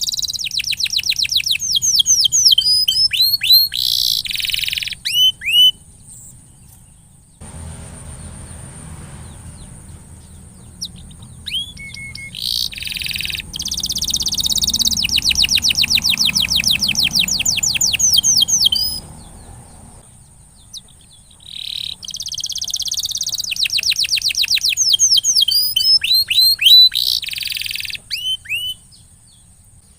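Domestic canary singing in three long bouts of fast rolling trills and down-sweeping whistled notes, with short pauses between the bouts.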